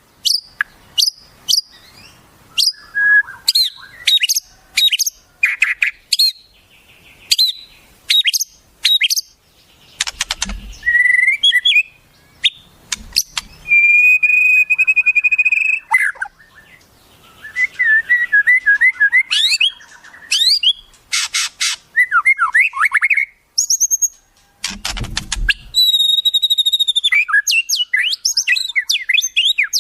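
A fast, varied medley of wild songbird calls: sharp sweeping chirps, trills and whistles, with a held steady whistle about halfway through and a couple of short harsh notes.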